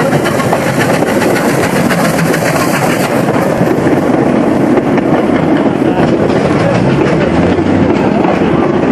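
A train running along the track, a loud steady rumble of wheels and rail noise.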